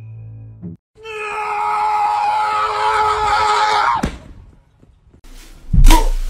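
A loud, long scream lasting about three seconds, sagging slightly in pitch and cutting off abruptly. Near the end comes a loud thump.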